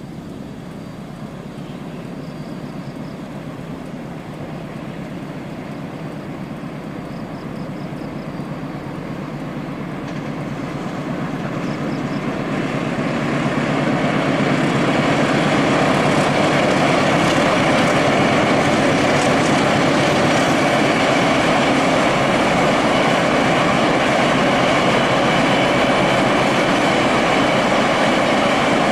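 A train approaching on the line. Its rumble builds from about ten seconds in and holds loud and steady as it passes.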